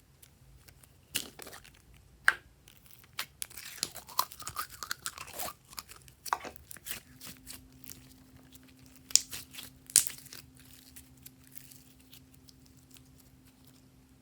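Glossy slime being squished and stretched by hand, giving irregular sticky clicks and crackling pops. The crackling is densest a few seconds in, with a couple of sharp pops later on.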